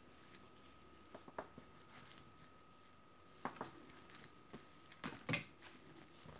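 Plastic dough scraper cutting through soft yeast dough and knocking on the stone countertop, with pieces set down: three pairs of short soft taps, the loudest about five seconds in, over a faint steady high-pitched tone.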